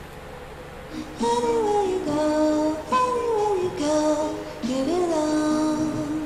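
Background music: a song with a high singing voice that comes in about a second in, after a quieter opening.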